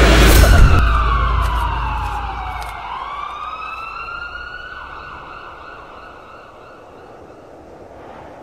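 Dramatic film sound effect: a deep boom hit, then a siren-like tone that slides down for a few seconds and bends back up into a long ringing tone, fading away steadily.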